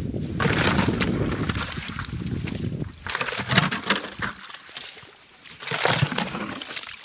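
Slushy water and loose ice chunks sloshing and splashing in a hole cut through thick lake ice: an ice chisel works in the slush at first, then a plastic bucket scoops slush out, with splashes about three and a half and six seconds in.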